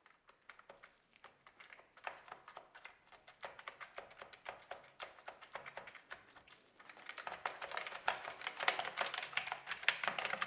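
Typing on an IBM point-of-sale keyboard: a rapid run of key clicks that grows denser and louder over the last few seconds.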